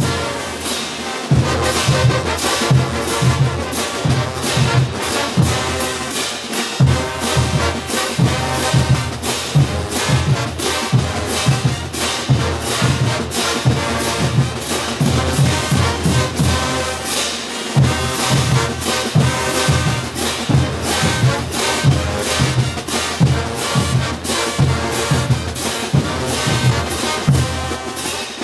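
Large Bolivian brass band playing full out: sousaphones, trumpets and trombones over snare drums, bass drums and clashing hand cymbals, on a steady beat.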